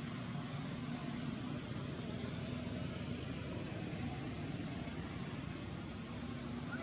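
Steady low hum of an engine running, under a constant background hiss.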